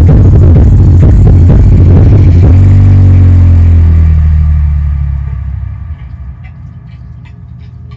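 Car subwoofer powered by a car amplifier playing electronic dance music with deep, heavy bass, very loud. A long low bass note is held near the middle, and the sound fades down about five to six seconds in.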